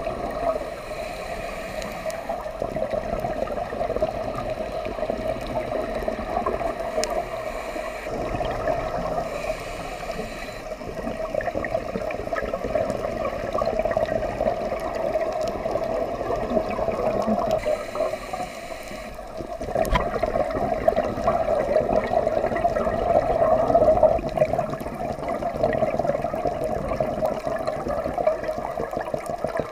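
Underwater ambience picked up through a dive camera's housing: a scuba diver's regulator exhaust bubbles gurgling and rushing, rising and falling in level with the breathing, over a steady watery hiss.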